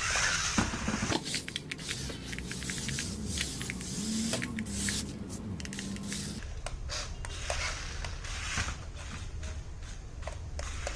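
Battery-powered RC twisting stunt car driving and turning on a tile floor: a faint whine from its small electric motors, wavering in pitch for a few seconds in the middle and then cutting off, with many light clicks and knocks of its rubber wheels and plastic body on the tiles.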